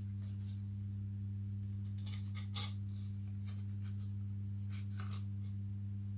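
A steady low electrical hum with several overtones, with a few light clicks and taps from small kit parts being handled and fitted. The tap about two and a half seconds in is the loudest.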